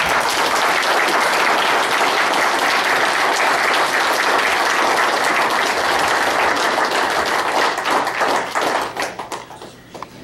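Audience applauding. The applause starts abruptly, holds steady, then thins out after about eight seconds into a few scattered claps and dies away.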